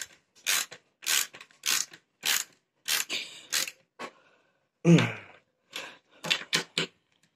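Screw being turned into a wooden furniture panel with a hand screwdriver: a short rasping creak with each twist, roughly every half second, coming quicker near the end, the loudest stroke about five seconds in.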